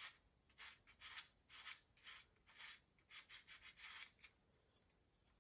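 P400 emery cloth rubbed back and forth on the edge of a new Kohler K341 piston, faint rasping strokes about two a second that stop about four seconds in: hand-deburring a machining burr off the piston.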